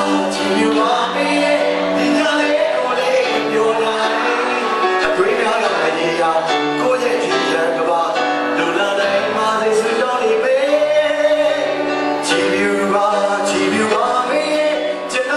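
Live band playing: a man singing into a microphone over electric guitar and keyboards.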